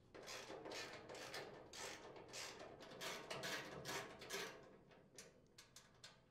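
Socket ratchet clicking in quick short runs, about two or three a second, as it backs the mounting nuts off a sheet-metal hopper. The strokes thin to a few lighter ticks near the end.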